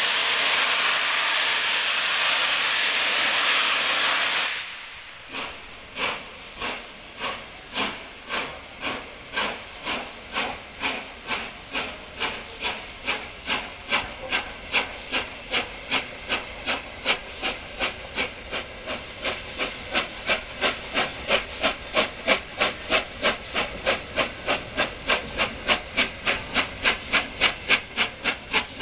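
Three-cylinder Peppercorn A1 Pacific steam locomotive 60163 Tornado: a loud, even hiss of steam that stops sharply about four and a half seconds in. Then come its exhaust beats as it pulls away, starting slow and quickening steadily from under two a second to about three a second as it gathers speed.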